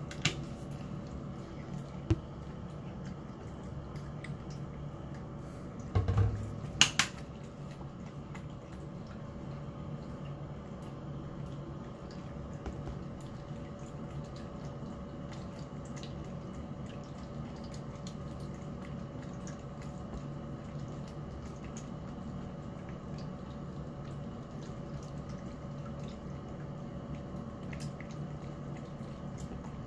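Cat eating salmon and kibble from a bowl: wet chewing and smacking with many small clicks over a steady low hum. About six seconds in comes a thump, followed by a sharp click.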